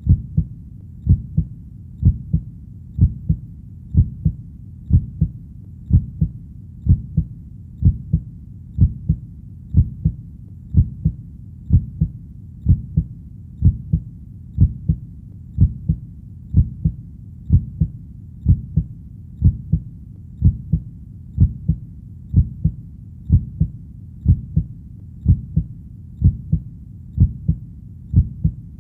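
Heartbeat: a steady lub-dub, each beat a pair of low thuds, repeating evenly at about one beat a second.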